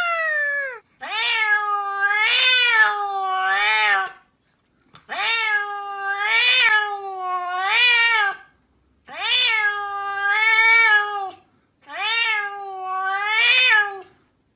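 A cat meowing in long, drawn-out calls that waver up and down in pitch, in four bouts of two or three calls each with short pauses between.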